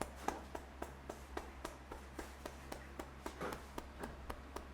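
Quick rhythmic hand taps of a head massage, about three to four a second, over a steady low hum.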